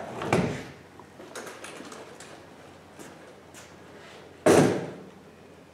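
Thin aluminium lid panel of a small ground power unit being lifted off with a brief rattle, a few light knocks while it is carried, then set down with one loud clunk about four and a half seconds in.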